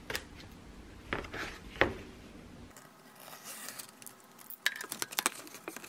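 Flat cardboard mailer being handled and torn open along its tear strip: a few light knocks as it is handled, then a rasping, crackling tear through the second half.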